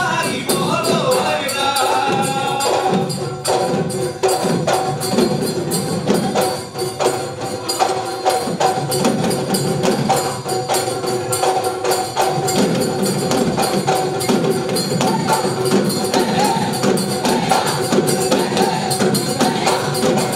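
Assamese Bihu music: dhol drums beaten in a fast, driving rhythm with bright clinking percussion like small hand cymbals, over steady held melody tones.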